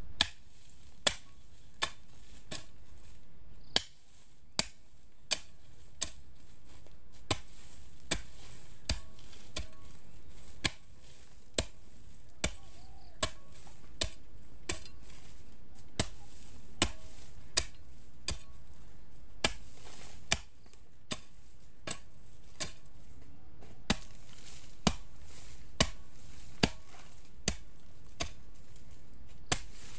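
A hoe chopping into hard, dry clay soil while digging planting holes: sharp strikes about once a second, with a few short pauses between bouts.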